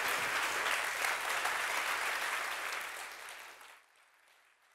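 Audience applauding, many hands clapping together, fading away about three and a half seconds in.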